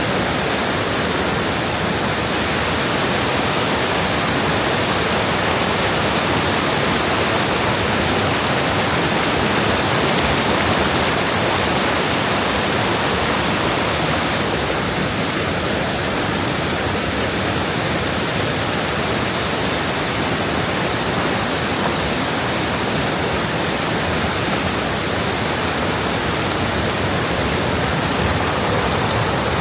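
Steady, loud rush of water from a waterfall and its mountain stream, an even roar with no breaks.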